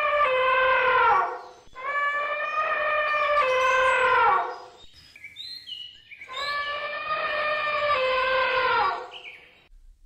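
Elephant trumpeting: three long calls, each holding a steady pitch, then stepping down and sliding lower as it ends. Faint bird chirps sound in the gap between the second and third call.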